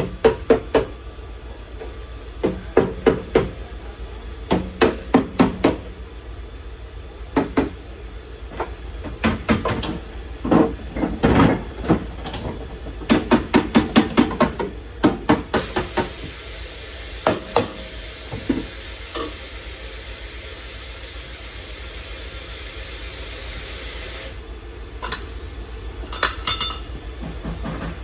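Hammer striking sheet-metal body panel in quick runs of three to five blows, as in panel beating. In the second half the blows give way to a steady hiss lasting several seconds, followed by a few more taps near the end.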